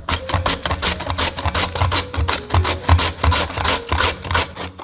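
Korean radish being shredded by hand on a plastic julienne grater with metal teeth: fast rasping strokes, about four to five a second.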